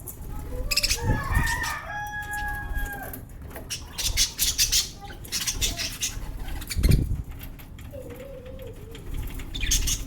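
Pet lovebirds chattering in a run of sharp, shrill squawks and chirps, with a couple of dull thumps.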